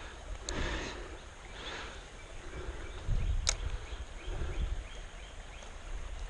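Outdoor ambience: low gusts of wind rumbling on the microphone, one sharp click about three and a half seconds in, and faint short chirps, likely birds or insects, through the second half.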